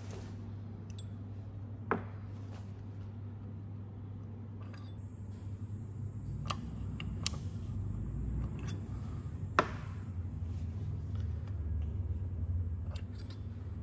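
A handful of sharp clicks and knocks as oily cam followers are pulled out of an engine cylinder head and set down on a wooden board. A low steady hum runs throughout, and from about five seconds in a steady high-pitched insect buzz joins it.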